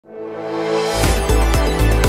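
News-channel intro theme music: sustained synth chords swell in from silence, then a deep pulsing bass beat comes in about a second in, at about four beats a second.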